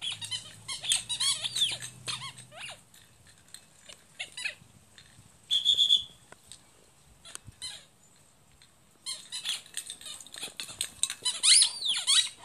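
A squeaky ball squeaking over and over as a chocolate Labrador chomps on it, in quick clusters of high squeaks with a lull of a few seconds midway, busiest near the end.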